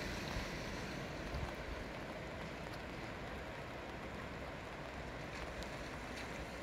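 Steady rushing of a fast-flowing, muddy river.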